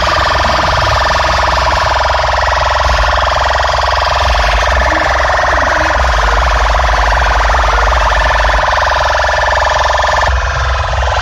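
Competition DJ sound-box loudspeakers blasting a very loud, distorted siren-like tone, steady and unbroken, with heavy bass underneath. It dips briefly near the end.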